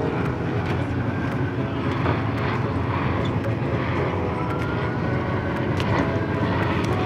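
Steady low engine roar, with a faint whine that rises in pitch about four seconds in.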